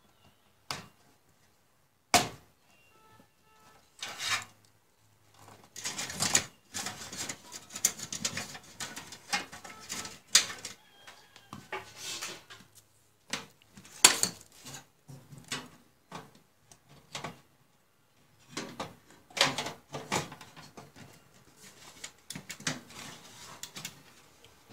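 Irregular clicks, knocks and rustles of cables and plastic connectors being handled inside an open desktop PC case. The sharpest click comes about halfway through.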